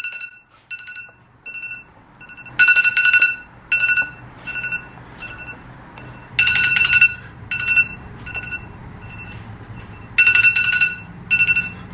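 Smartphone timer alarm ringing: a repeating electronic ringtone of beeps at two fixed pitches, with a burst of rapid beeps about every four seconds and single beeps between. It signals that the cake's baking time is up.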